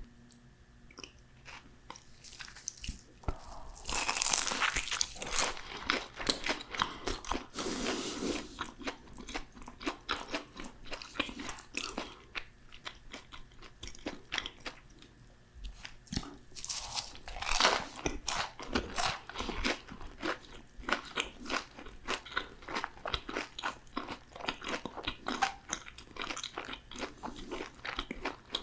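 Close-miked biting and chewing of crispy fried food: a quiet start, a run of loud crunching bites a few seconds in, another loud bite past the middle, and steady chewing crunches in between and after.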